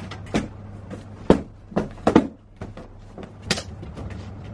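Aluminium hard-shell suitcase being shut and handled: a series of knocks and thumps, the loudest about one and two seconds in, then a sharper click about three and a half seconds in.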